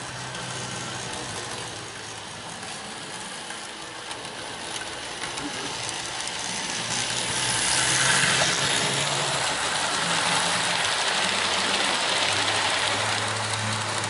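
Model train running on its track: a Conrail diesel switcher locomotive's motor and wheels whirring and rattling along the rails, louder as it passes close by about eight seconds in, over a low steady hum.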